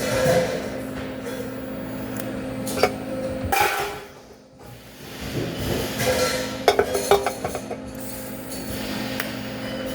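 Metal pieces clinking and knocking against each other: a single clink about three seconds in, then a quick run of several clinks around seven seconds. Under them runs a steady hum that drops out briefly near the middle.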